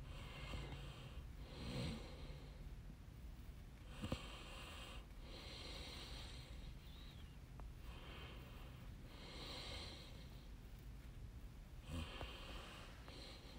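Faint breathing close to a microphone: soft hissy breaths in and out, about one breath every four seconds, over a low steady hum.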